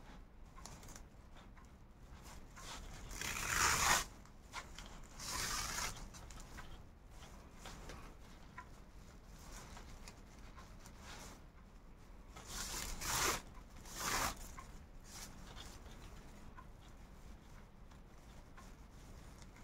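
Raffia paper yarn pulled through crocheted raffia fabric as a handle is sewn on: four drawn-out swishes, two a few seconds in and two more about twelve seconds in, over faint handling rustles.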